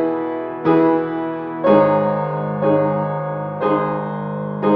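Piano chords struck about once a second, each left to ring and fade, in an instrumental passage between sung lines of the song.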